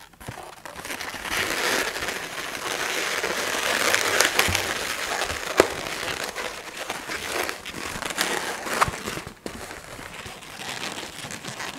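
Latex twisting balloons being twisted and handled: rubber rubbing and crinkling against rubber, with scattered sharp clicks and one louder click about five and a half seconds in.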